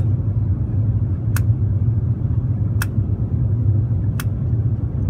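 Steady low rumble inside an Airbus A350-900's cabin on approach: the Rolls-Royce Trent XWB engines and airflow heard from a window seat over the wing. A short sharp tick repeats about every second and a half.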